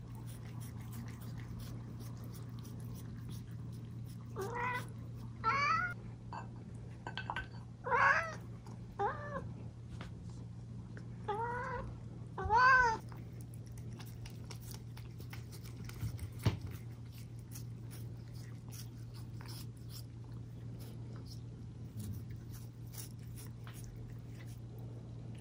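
Young tabby kitten meowing insistently for more milk: about seven calls in two bunches, each rising then falling in pitch, over a steady low hum.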